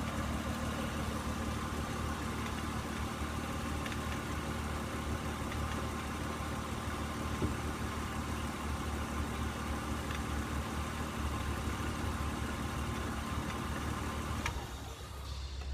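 Car engine idling steadily on freshly changed oil, with a constant hum. The hum drops away suddenly near the end.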